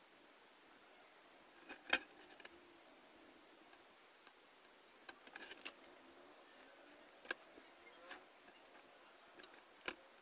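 Scattered light clicks and taps from a steel ruler being shifted and set down on a sheet of white board while a pencil marks along it, over a quiet room. The sharpest click comes about two seconds in.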